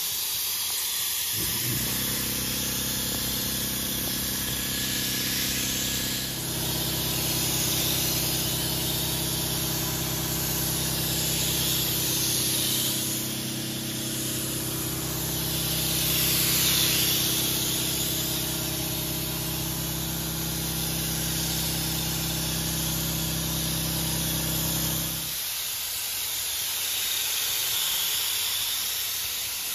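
3M Accuspray gravity-feed spray gun hissing steadily as it atomises gelcoat on about 35 psi of air. A low steady motor hum comes in about a second and a half in and cuts off suddenly a few seconds before the end.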